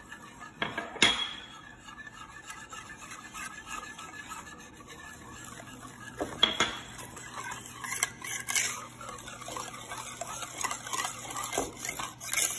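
Wire whisk stirring cake batter in a bowl, as flour is whisked into the wet mix, with the wires clinking against the bowl now and then. The sharpest clink comes about a second in, with others at about six and a half and eight and a half seconds.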